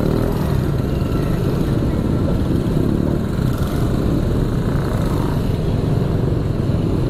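Motorcycle engine running at low speed in slow, dense traffic, mixed with the steady engine noise of many small motorbikes and scooters around it.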